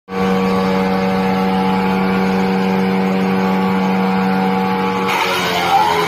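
Four-blade, 102 hp wood chipper running at speed with a steady hum. About five seconds in, a log goes in and the blades begin chipping it, adding a rougher, noisier grinding over the hum.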